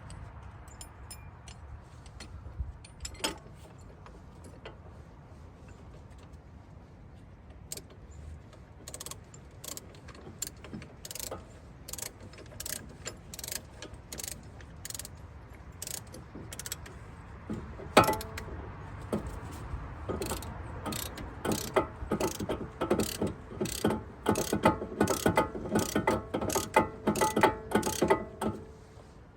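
Ratchet clicking in a steady series as it turns the screw of a caliper piston compressor, pushing the front brake caliper piston back into its bore. The clicks start about a quarter of the way in and get louder and quicker in the second half, with one sharper knock just past the middle.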